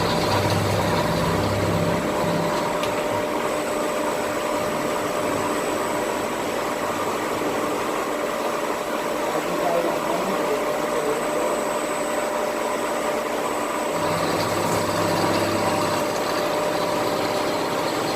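3-axis vertical machining centre milling aluminium: steady machine noise with a few constant tones, including a high whine, and a low hum that drops out about two seconds in and comes back about fourteen seconds in.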